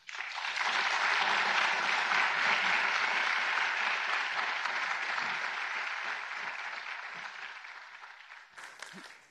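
Large seated audience applauding, swelling within half a second, then slowly fading and dying away near the end.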